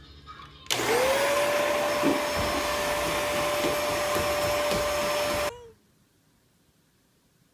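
A household appliance's electric motor switched on, its whine rising quickly to a steady pitch over a loud rushing noise. It runs for about five seconds, then is switched off, the whine dropping away as it stops.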